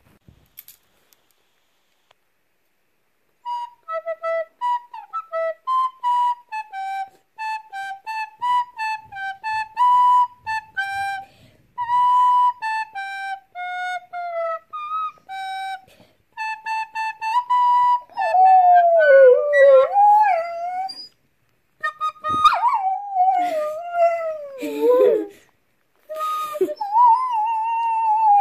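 A recorder plays a simple tune of short, separate notes, and from about two-thirds of the way in a basenji howls along in long, wavering, sliding notes that break off and start again three times.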